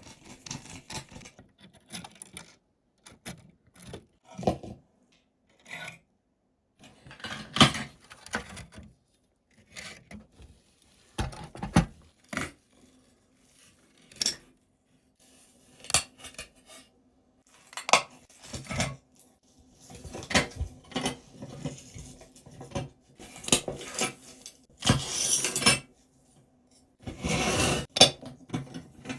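Small metal and plastic parts of a diecast model car being handled on a bench: irregular clinks, clicks and clatters, with a few longer scraping rattles near the end.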